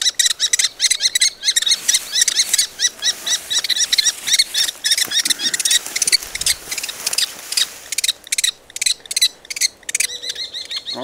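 Common kestrel nestlings calling: a rapid, unbroken run of high, repeated calls, several a second.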